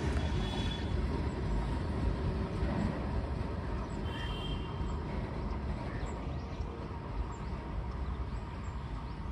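Goods train rolling away on the rails, its wheels rumbling low and steadily fading as the brake van at the tail recedes.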